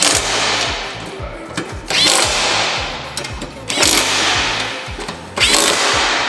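Cordless impact driver with a 7/16 socket running the mounting-plate screws down in four short runs, about one every two seconds, over background music with a steady beat.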